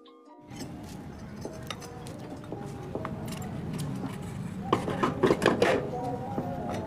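Metal parts of a Yamaha Aerox's CVT clinking and clicking as the rear pulley and clutch assembly is worked onto its shaft by hand, with a quick run of louder clinks about five seconds in. Faint background music plays underneath.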